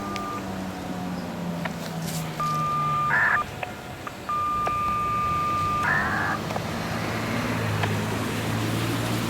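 Federal Signal 2001-SRN siren coasting down after its wail, its pitch now low and still slowly falling. It is broken twice by a loud, high, steady beep lasting a second or more, each followed by a short rough burst.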